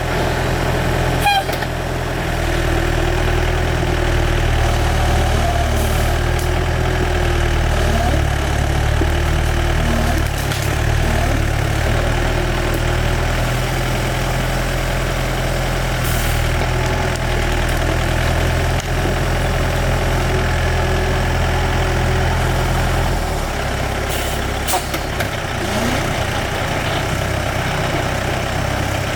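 Excavator's diesel engine running steadily, its low engine note changing and easing about 23 seconds in.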